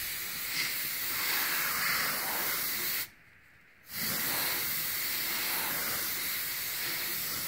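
Can of compressed air spraying in a steady hiss, blowing wet alcohol ink dry. The hiss cuts off suddenly about three seconds in and starts again under a second later.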